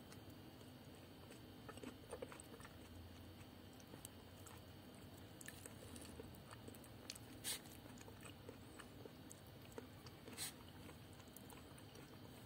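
Faint chewing of a soft coconut custard cake (klappertaart), with a few short clicks now and then.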